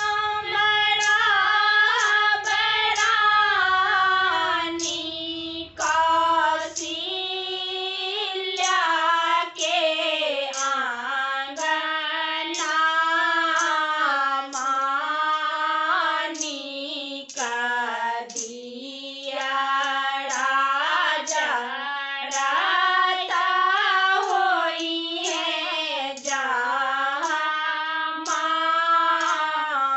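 Three women singing a Maithili Chhath devotional folk song, a Kharna evening song, together in unison without instruments. The melody is slow, with long held notes that bend in pitch.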